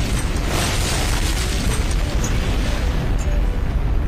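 Rumble of a large explosion carrying on after the blast, heaviest in the low end, with a hiss above it that thins out toward the end.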